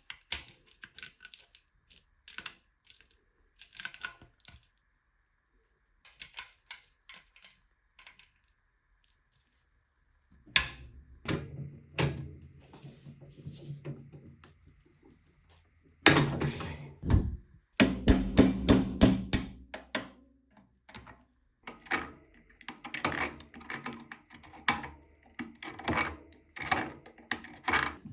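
Irregular clicks, taps and knocks of tools and small metal bicycle parts being handled, with a louder, denser run of clattering and scraping around the middle.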